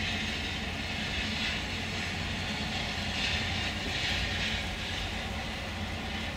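Freight train of hopper wagons hauled by an electric locomotive, rolling along the far riverbank: a distant, steady rushing of wheels on rails that swells and eases, over a steady low hum.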